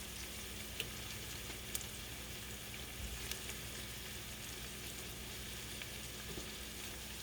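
Sliced Yukon potatoes frying in a pan, a steady sizzle with a few faint light pops.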